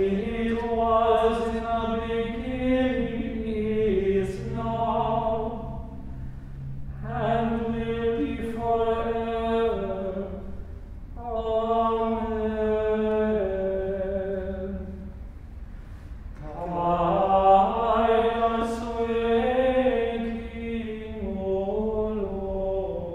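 A small ensemble of men's voices singing unaccompanied chant in four sustained phrases with short breaks between them.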